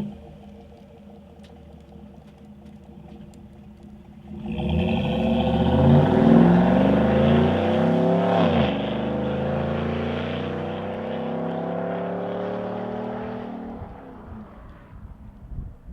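V8 engine of a Chevrolet Silverado breathing through an AWE OFG cat-back exhaust with an H-pipe. It runs at a low steady note, then accelerates hard about four seconds in, its pitch climbing until a gear change drops it at about eight and a half seconds. It pulls steadily again before easing off near the end.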